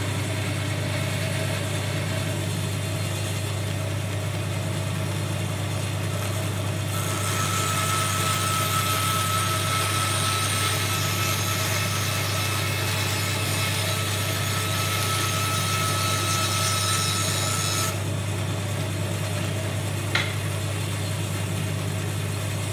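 Floor-standing bandsaw running steadily, its blade cutting through a piece of wood for about eleven seconds in the middle, with a hiss and a steady high whine during the cut. A single click a couple of seconds before the end.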